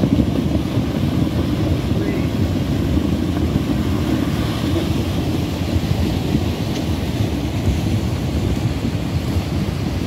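A debris flow of mud, sticks and logs moving down a dry creek bed, a steady low rumbling rush that does not let up.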